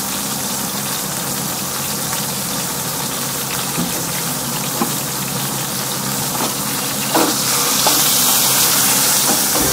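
Yellowfin tuna steak sizzling in a ridged grill pan, frying in the fat left from cooking langoustines: a steady hiss with a few sharp pops. The sizzle grows louder about seven seconds in.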